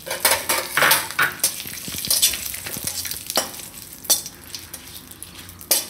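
Indian bay leaves sizzling in hot oil in a steel kadai, with irregular sharp crackles and pops as they are stirred about.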